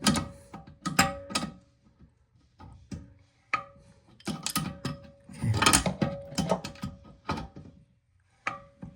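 Hand tool clicking and knocking against a toilet tank-to-bowl bolt and the porcelain as the bolt is worked loose: irregular sharp clicks, with a thicker run of them about five to six seconds in.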